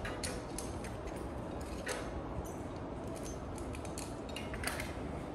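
Light metallic clicks and clinks of gym equipment being handled, a dozen or so at irregular intervals, over a steady low hum of the room.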